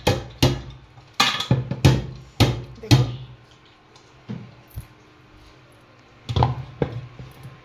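Sharp knocks on steel cookware, each with a short ring: about two a second for three seconds, then two fainter ones and a final pair near the end.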